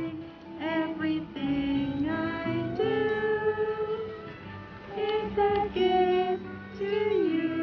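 A girl's voice singing a melody over acoustic guitar.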